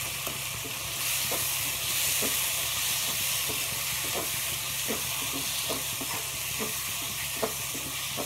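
Onion-tomato masala with spice powders sizzling in a non-stick kadai as a wooden spatula stirs it, with short scraping strokes about once a second over a steady frying hiss.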